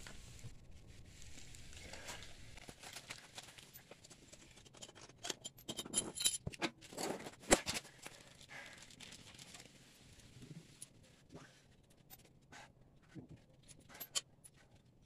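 Handling noise from fitting a go-kart wheel: scattered clicks, knocks and rustling. The loudest is a single sharp knock about seven and a half seconds in.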